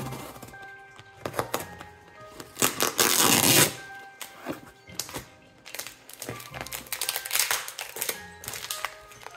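Cardboard box being cut open by hand, with one loud scraping stretch of about a second roughly three seconds in and scattered small knocks and clicks of handling, over background music.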